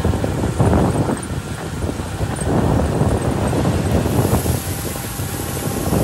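Heavy dump truck's diesel engine running steadily while the hydraulic hoist tips the gravel-laden bed. From about four seconds in, gravel starts sliding out of the tailgate, adding a rushing hiss over the engine.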